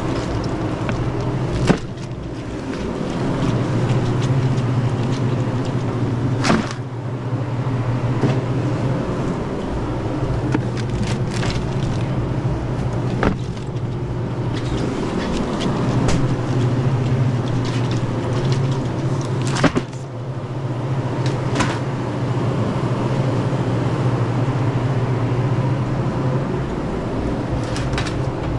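Steady low hum of a walk-in beverage cooler's refrigeration unit, dipping briefly a few times, with a handful of sharp knocks as shrink-wrapped packs of cans are set down on the cooler shelves.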